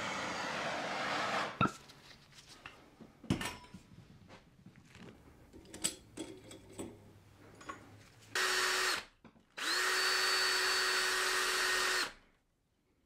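A handheld soldering torch hissing, cutting off about a second and a half in, followed by a few light metal clicks and taps. Then a cordless drill fitted with an abrasive wheel runs in two bursts, a short one and then one of about two and a half seconds, cleaning up the freshly soldered spoon.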